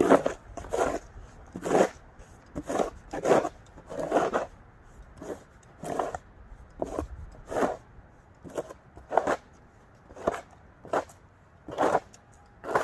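Footsteps crunching through deep snow at a steady walking pace, about one and a half steps a second.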